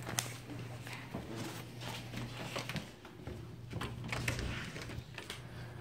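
Handling noise: scattered clicks, taps and rustles as a small flashlight is picked up and a handheld phone is carried about, over a steady low hum.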